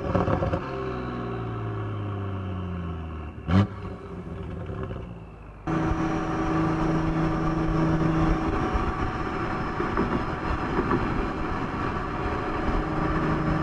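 BMW N55 turbocharged inline-six with a VRSF catted downpipe, heard from the exhaust while driving. The revs fall, then about three and a half seconds in they rise briefly to a sharp crack and drop away again. Just over five seconds in the sound switches abruptly to a steady, even engine drone.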